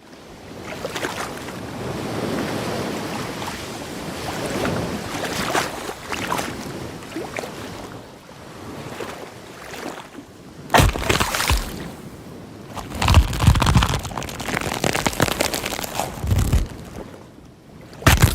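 Water washing with wind buffeting the microphone, and several sudden low thumps from the gusts.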